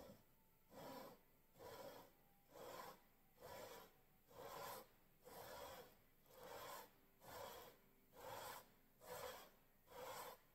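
Faint, even rasping strokes, about one a second, of a flat abrasive lapping plate worked back and forth across the welded cast-aluminium top flange of an 8-71 supercharger case. The case is being surfaced flat to seal on its gasket.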